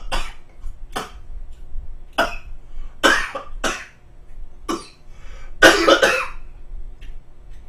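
A man coughing repeatedly, about seven short coughs with the loudest, longest fit about six seconds in: a choking fit from food going down the wrong way while eating.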